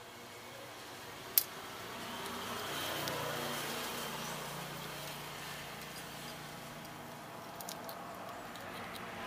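A sharp click about a second and a half in, with a few small clicks near the end, as steel pliers and a plastic bulb socket are handled. Under them a vehicle passes by, its noise swelling and then fading.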